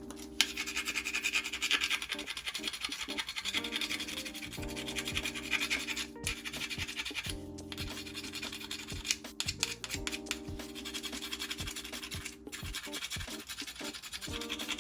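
Mussel shells being scrubbed clean, a fast continuous rasping scratch with a few brief pauses, over background music.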